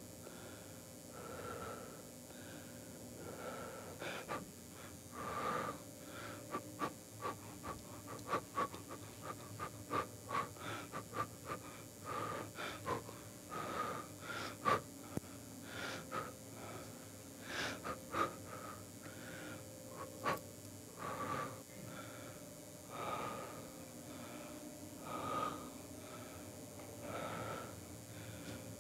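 A person breathing audibly in slow, repeated breaths about every two seconds, with a run of short clicks in the middle stretch.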